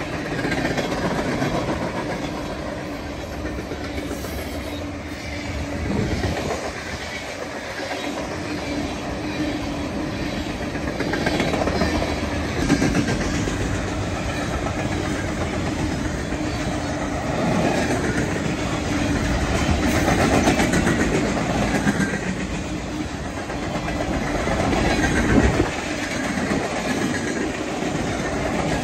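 Freight train cars rolling past, steel wheels clattering over the rails, with a few louder knocks along the way.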